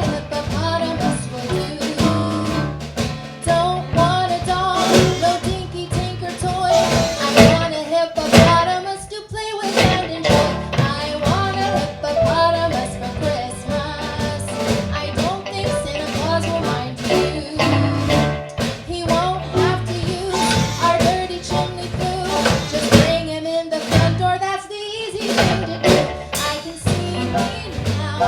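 Live band playing an upbeat song: singing over electric guitar and a drum kit.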